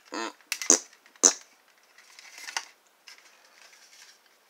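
Hard plastic parts of a transforming toy robot snapping together: two sharp clicks about half a second apart, then faint rustling of the parts being handled.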